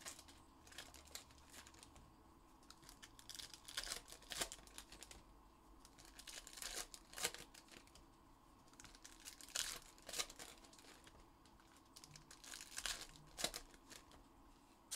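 Faint crinkling and tearing of 2021-22 Panini Donruss Elite basketball hobby pack wrappers being opened by hand, in irregular rustling bursts a second or two long.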